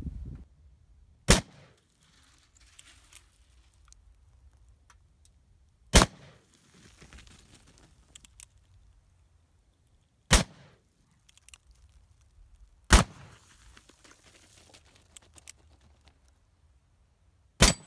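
Five single shots from a Pietta 1873 Single Action revolver, a Colt Single Action Army replica, firing black-powder .45 Colt handloads. Each is a sharp report, the shots spaced about 2.5 to 5 seconds apart.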